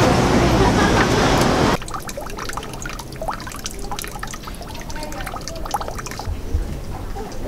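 Street traffic noise that cuts off suddenly a little under two seconds in. It gives way to a thin stream of water trickling and splashing from a dragon-figure spout into a stone temple purification basin.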